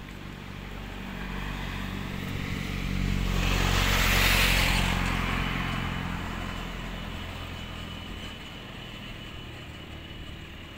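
A motor vehicle passing by: its engine hum and road noise grow to a peak about four seconds in, then fade away.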